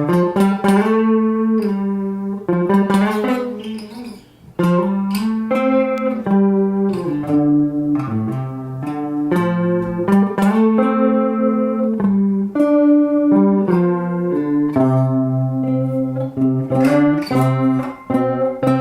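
Electric guitar played through a Deadbeat Sound Wet Dreams chorus pedal with its speed and depth at halfway, giving a strong chorus warble. It plays a melodic passage of chords and single notes that change about once a second, with a short break about four seconds in.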